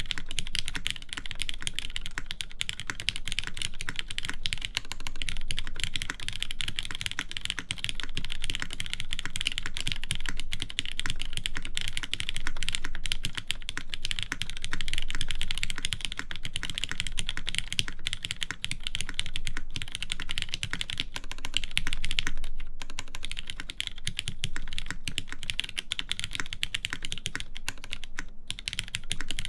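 Continuous typing on a TGR Jane v1.5 mechanical keyboard with lubed Cherry MX Black linear switches on a half FR4 plate and GMK keycaps: a dense stream of keystrokes, with two brief pauses in the last third.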